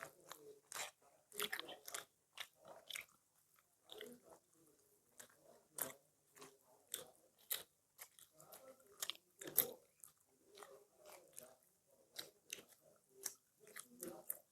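Close chewing and biting of people eating a meal of luchi, rice, chicken curry, vegetable curry and raw onion: irregular crisp crunches and wet mouth clicks, several each second.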